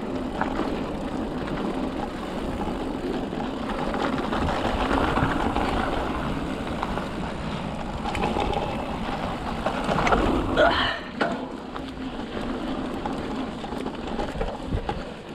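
Mountain bike riding a dirt singletrack trail: tyres rolling and rattling over dirt and the bike shaking, heard as a steady rough noise with wind on the microphone. There is a brief rising squeal about ten seconds in.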